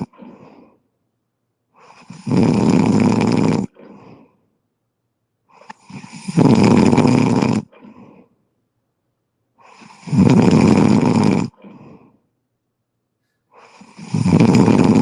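Loud, rhythmic snoring: a long snore about every four seconds, each followed by a short, quieter breath, with silence between.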